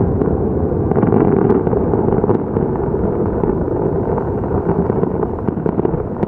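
Fireworks display heard from afar: aerial shells bursting in a dense, continuous rumble of overlapping booms, with many sharp crackles and pops on top.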